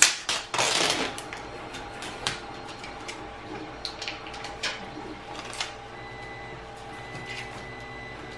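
A sharp click, then a scraping noise lasting about half a second. After that come scattered light clicks and taps as the metal-framed LCD panel and its circuit board are handled, over a faint steady hum.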